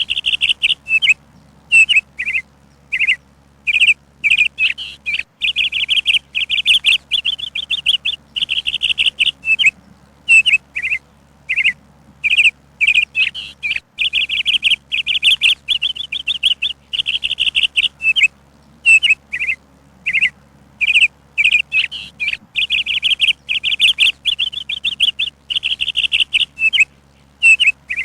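Songbird chirping and singing, high-pitched: rapid trilled phrases of a second or two alternating with short single chirps, with brief pauses between them.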